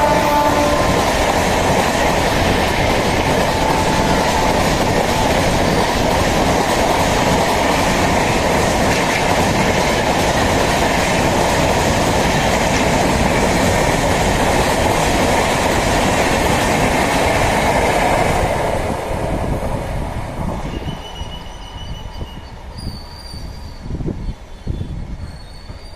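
A passenger train of LHB coaches running past at speed: a loud, steady rumble and clatter of wheels on the track, with the last of the locomotive's twin-tone horn trailing off in the first second. The noise fades away from about 18 seconds in as the train draws off.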